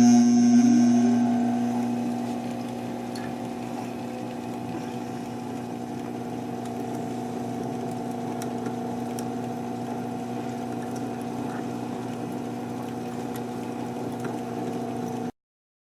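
Metal lathe running steadily with an even motor hum while a parting tool cuts off a 3/8-inch aluminium rod. The sound is loudest at the start, settles within a couple of seconds, and cuts off abruptly near the end.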